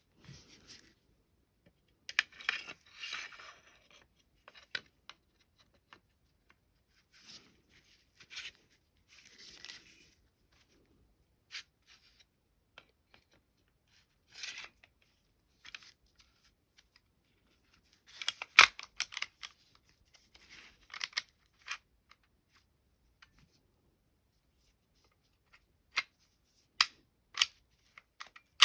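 Handling an HK P2000 pistol while reassembling it after cleaning and oiling: metal parts sliding and scraping against each other in short spells. Near the end come four separate sharp metallic clicks.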